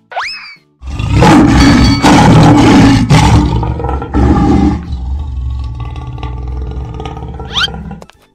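Lion roar sound effect, loud, starting about a second in and lasting some four seconds, over background music.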